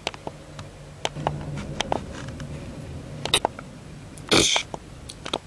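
Mouth-made fight sound effects for a knife attack: a few scattered sharp clicks, then a short hissing whoosh about four and a half seconds in.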